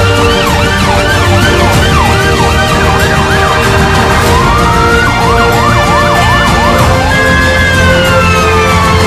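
Emergency vehicle sirens sounding, a rise-and-fall wail that switches to a fast yelp about five seconds in, then a long falling tone near the end, over background music.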